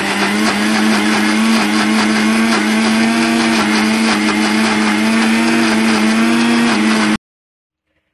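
Electric mixer grinder with a stainless steel jar running steadily, grinding vegetables with a little water into a thick paste; a steady, even hum that cuts off suddenly about seven seconds in.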